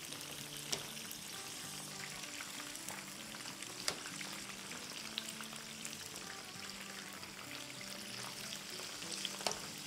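Batter-coated chicken pakoras deep-frying in hot oil, a steady sizzle with fine crackling. A few sharp clicks come from the metal slotted spoon knocking the pan as the pieces are turned.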